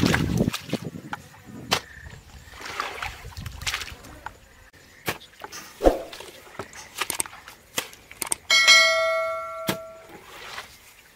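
A long-handled digging tool strikes and splashes through wet mud and shallow water in scattered knocks. About two-thirds of the way through, a bell-like notification ding rings out clearly for about a second, louder than the digging.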